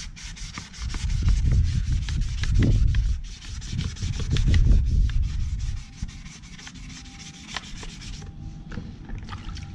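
Hand wet sanding: wet-and-dry sandpaper on a pad rubbed back and forth in quick strokes over a primed plastic motorcycle mudguard, flatting the primer with water. The strokes are heavy at first and lighter after about six seconds.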